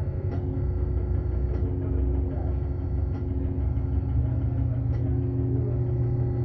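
Hydraulic hose crimping machine running with a steady low hum from its hydraulic pump as the dies close on a hose fitting, with faint ticks about every second and a half.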